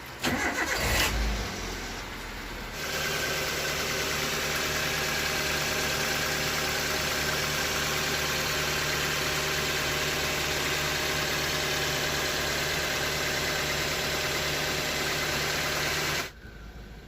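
Toyota Avanza VVT-i four-cylinder petrol engine starting, then idling steadily; the sound cuts off suddenly near the end.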